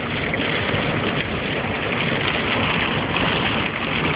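Steady noise inside a moving car: tyres on a wet road and rain on the car's body and windscreen.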